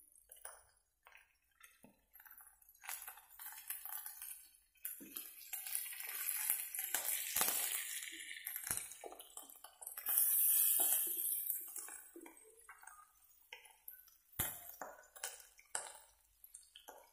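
Cabbage and quail eggs frying in oil in a wok: a sizzle that swells a few seconds in, with a stainless-steel spatula scraping and clinking against the pan.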